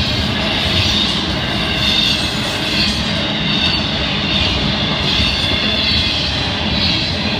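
Cars of a Florida East Coast Railway intermodal freight train rolling past on the rails: a loud, steady noise of wheels on track.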